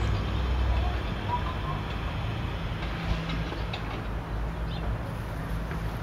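Steady low outdoor rumble with a few faint, short chirps over it.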